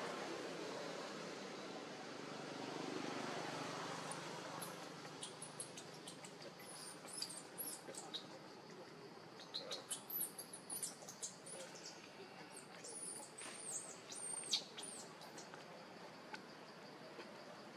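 A flurry of short, very high-pitched squeaking chirps, many of them falling in pitch, from about five seconds in until near the end, over a low steady hiss.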